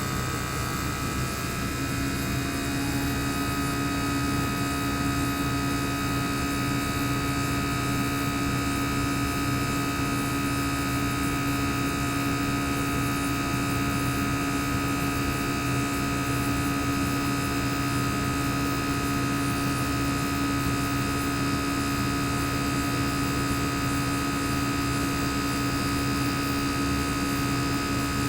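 Single-rotary inverter compressor (Panasonic 9SS064XBB21) of a Panasonic CU-227CF air-conditioner outdoor unit, exposed with its sound insulation opened, running. Its pitch shifts and settles in the first two or three seconds, then it runs steadily as a hum with a thin high whine.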